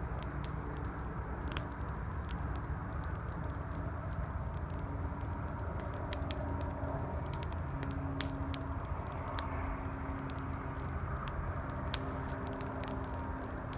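Campfire crackling, with sharp, irregular pops several times a second, over the steady rumble of highway traffic.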